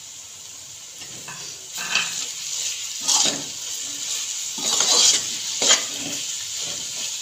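A fork stirs and scrapes grated carrot-and-apple halwa around a metal pan as it fries in ghee. The scraping strokes are irregular and begin a couple of seconds in.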